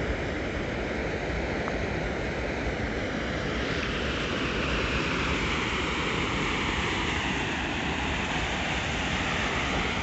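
Steady rush of water pouring in a wide sheet over the concrete lip of a dam spillway and splashing into the channel below. The hiss grows brighter a few seconds in.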